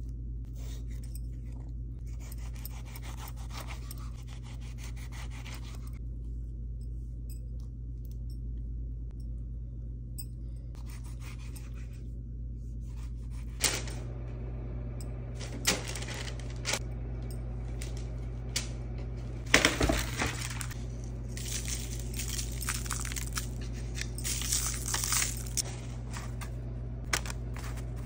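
A kitchen knife cutting through a large tomato on a wooden cutting board, faint strokes at first. From about halfway, paper crinkling and rustling as parchment paper is laid out, with several sharp taps and knocks, the loudest about two-thirds through. A steady low hum underneath.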